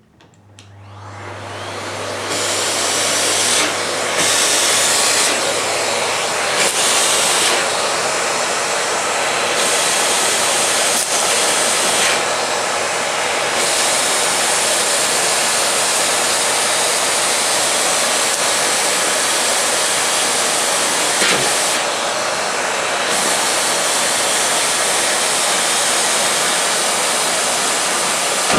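Miele S121 canister vacuum cleaner with a 1600 W motor switched on, spinning up over about two seconds and then running steadily. The hissing top of its sound drops away and comes back several times.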